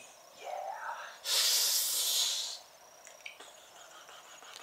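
A man makes a long hissing breath through his mouth, lasting about a second and a half from a little over a second in. It follows a short breathy vocal sound.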